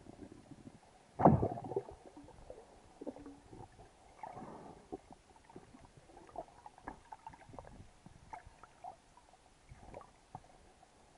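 Muffled underwater sound through a camera's waterproof housing: a low rough rumble in the first second, a loud sudden knock just after, then scattered soft clicks and crackles.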